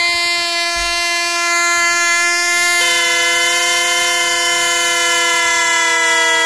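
Three plastic toy trumpet horns taped into the neck of a giant rubber balloon, blown together by the air escaping from the balloon: a loud, steady chord of held notes, with another note joining about three seconds in.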